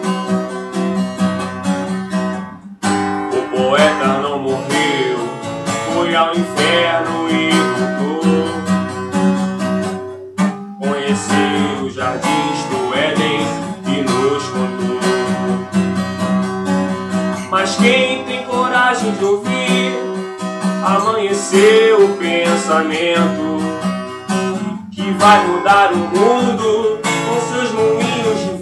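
Acoustic guitar strummed and picked in a steady accompaniment, with a few short breaks between phrases.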